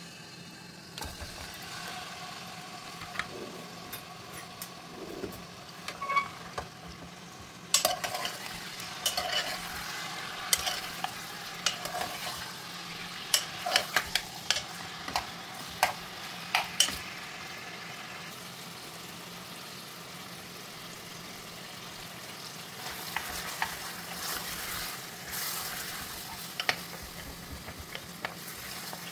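Chicken pieces sizzling in hot oil in a metal pressure-cooker pot while being stirred. A spoon knocks and scrapes against the pot, with many sharp clacks in the first half. In the second half there is mostly the steady sizzle.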